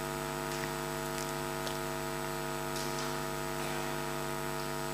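Steady electrical mains hum: a low buzz with many evenly spaced overtones, with a few faint ticks.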